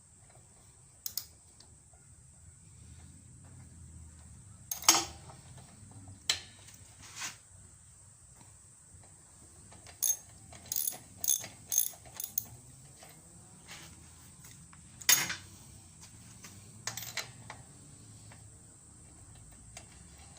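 Hand tools clicking and knocking on metal while a lawnmower's spark plug is taken out, with a quick run of ratchet-wrench clicks about ten seconds in. The two loudest knocks come about five seconds in and again near fifteen seconds.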